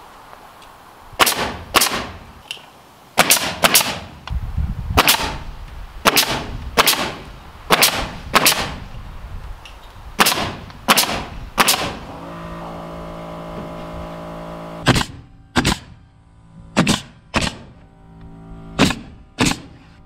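DeWalt nail gun firing nails into wooden door trim: about twenty sharp shots, singly or in quick pairs and triplets, a second or so apart. A steady hum runs from about twelve to fifteen seconds in, under the shots.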